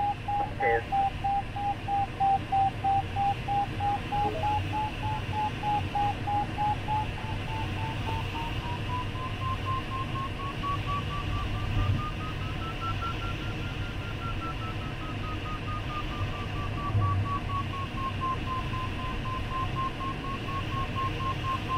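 Glider variometer beeping steadily over the hiss of cockpit airflow. The beeps start at a low pitch, climb gradually to their highest pitch about two-thirds through, then settle a little lower. The beeping signals the glider climbing in a thermal, and the higher pitch marks stronger lift.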